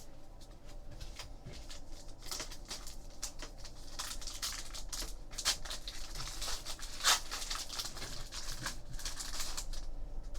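Trading cards being flipped and slid against one another in the hands, a run of soft clicks and rustles that grows busier in the second half, with one sharper snap about seven seconds in.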